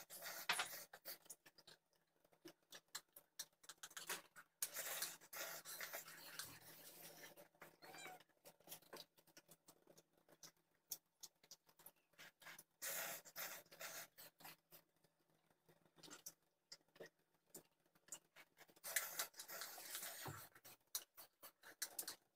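A man slurping and eating instant cup noodles, in repeated short noisy bursts with pauses between.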